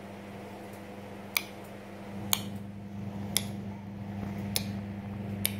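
A series of sharp, short clicks, five of them about a second apart, over a steady low hum that grows louder about two seconds in.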